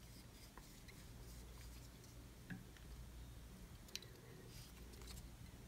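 Near silence: a low steady room hum with a few faint, scattered ticks, the clearest about four seconds in.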